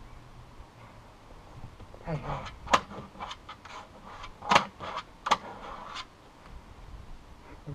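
A beagle jumping up and pawing at a bucket perched on two wooden chairs: a run of clicks and knocks from about two seconds in, three of them sharp and loud, stopping about six seconds in.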